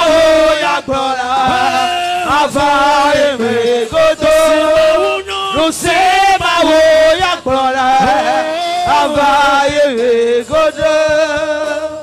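Loud worship singing: voices chanting a melody in long held phrases, fading out at the end.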